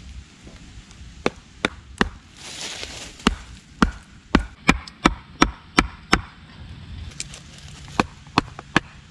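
A wooden club striking the top of a sharpened wooden stake, driving it into the ground: sharp wooden knocks, about two to three a second, in runs with short pauses between.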